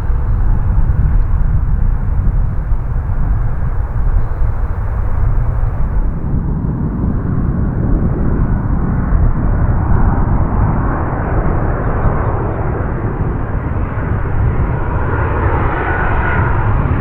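Jet airliner arriving, its engine noise growing stronger through the second half, over a steady low rumble.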